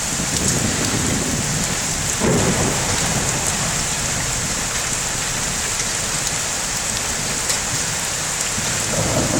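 Heavy rain pouring down steadily during a thunderstorm, with low thunder rumbles: one about two seconds in and another near the end.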